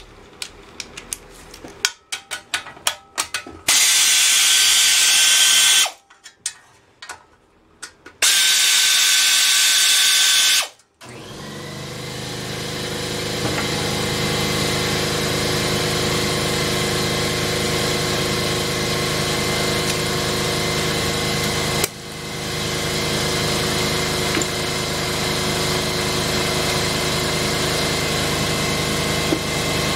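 Ratchet clicking on the engine's bolts, broken by two bursts of a power tool running about two seconds each. About eleven seconds in, a steady machine hum starts, builds for a few seconds and then runs on evenly.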